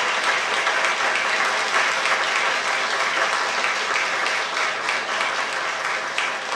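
Audience applauding, a dense steady patter of many hands clapping that begins to ease off slightly near the end.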